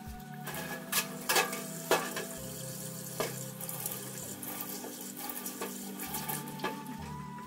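Tap water running into a stainless steel sink as peeled potatoes are rinsed, with a few sharp knocks between about one and three seconds in as potatoes are set down on a plastic cutting board.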